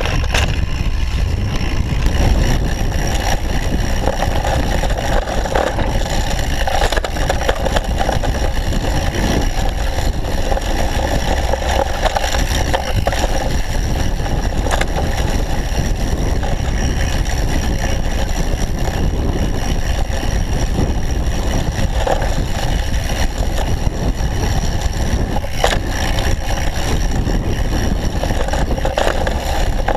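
Downhill mountain bike ridden fast over a dirt trail: a steady, loud rumble of wind on the camera microphone and tyres rolling on dirt. Frequent small knocks and rattles come from the bike over bumps.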